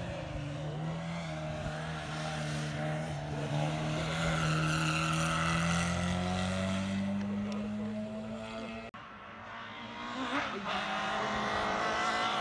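Race car engine running hard under load on a hill climb, its pitch rising slowly. A sudden break about nine seconds in is followed by another engine building up and rising in pitch.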